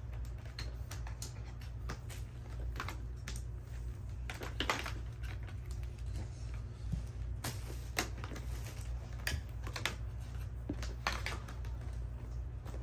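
Irregular clicks, knocks and rustles of hands handling a new upright vacuum cleaner and its long power cord, over a steady low hum.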